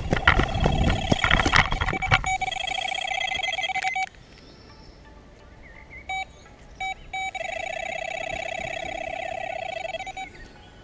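Delkim electronic bite alarm on a carp rod sounding during a run, a rapidly pulsing electronic tone as line is pulled from the reel. It sounds over loud noise at first and stops about four seconds in, then gives two short bleeps and sounds steadily again for about three seconds before cutting off suddenly.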